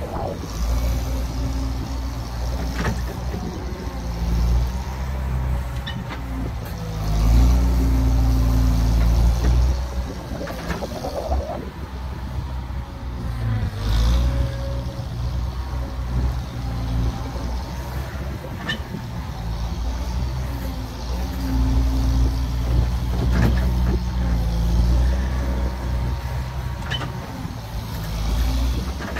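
Bobcat skid-steer loader's engine running under load, revving up in two longer louder stretches as the bucket scrapes dirt out of the ditch and the machine backs up, with a few scattered knocks.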